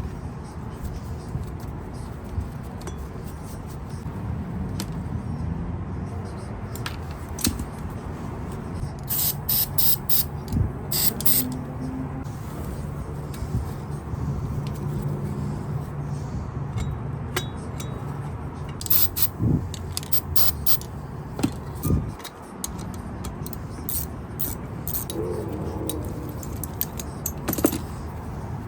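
Metal tools clicking and clinking against metal saw parts during disassembly, in short clusters over a low steady hum.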